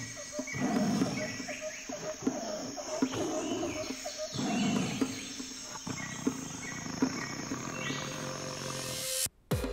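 Runway soundtrack of nature-style ambience: repeated short chirping calls, some sliding upward, over low swelling growl-like rumbles. It cuts off abruptly near the end.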